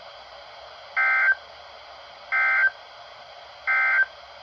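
Emergency Alert System end-of-message code on NOAA Weather Radio: three identical short, harsh digital data bursts about a second and a half apart, over a faint steady radio hiss. They mark the close of the weekly alarm test before the regular broadcast resumes.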